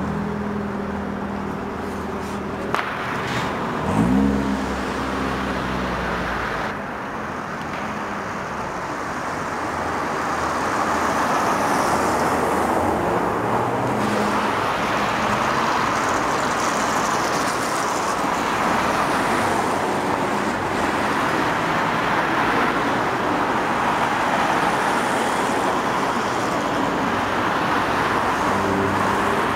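City street traffic: cars driving past, a steady noise of engines and tyres that gets louder about ten seconds in. In the first few seconds a nearby engine hums, rising in pitch briefly about four seconds in.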